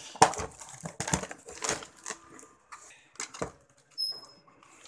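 Cardboard box flaps pulled open and the contents handled: a series of short scrapes, rustles and knocks, sparser toward the end, with one brief high squeak about four seconds in.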